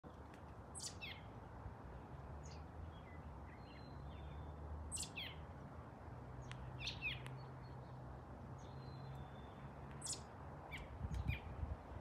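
Small birds chirping in trees: quick, high, falling chirps every couple of seconds, with a few softer short notes between them. A faint steady low hum lies underneath.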